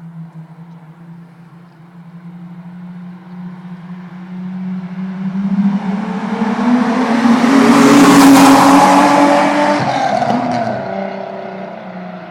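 Volkswagen Golf VR6's narrow-angle six-cylinder engine as the car approaches and drives past. Its engine note climbs, is loudest about eight seconds in, then drops in pitch and fades as the car pulls away.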